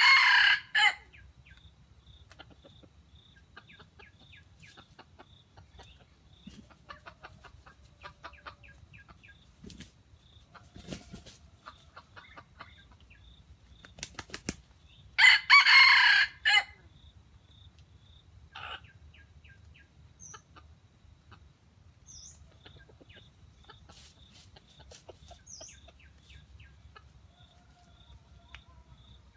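A jungle fowl rooster crowing twice: a short crow at the very start and another about fifteen seconds in. Between the crows come scattered soft clucks and chirps over a faint regular ticking.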